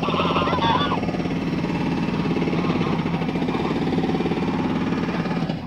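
A motor running with a fast, steady pulsing throb, the loudest sound, which cuts off suddenly near the end. Domestic geese honk over it at the start and again about three seconds in.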